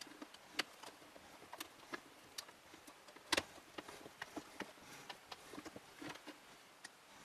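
Irregular small clicks and taps of hands working on PC fan and heatsink cover parts inside a computer case, with one sharper knock a little over three seconds in.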